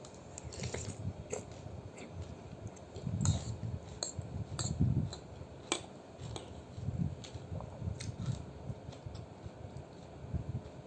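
Close-up eating sounds from a bowl of noodle soup: irregular chewing and mouth noises, with scattered light clicks of utensils against the bowl.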